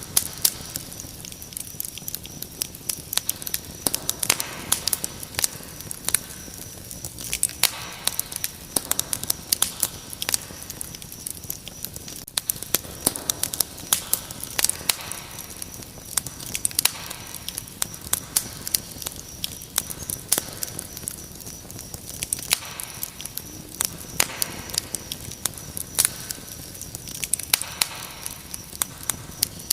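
Wood fire crackling with frequent sharp, irregular pops, over a steady high trill of crickets.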